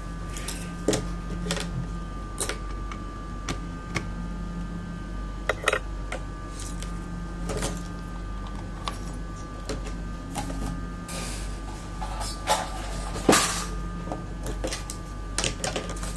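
Irregular sharp clicks and light knocks of computer hardware being handled on a workbench, the loudest about 13 seconds in, over a steady electrical hum with a faint high whine.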